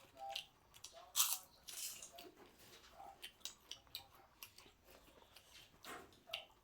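Scattered small clicks, taps and rustles of hands handling food and utensils during cooking, the loudest about a second in.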